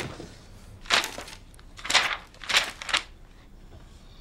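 Pages of a large dictionary being turned: three quick paper rustles, one about a second in and two more close together around two seconds in.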